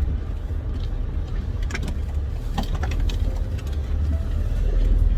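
Off-road 4x4's engine running at low speed, a steady low rumble, with a few short knocks about two seconds in as it crawls through a washout.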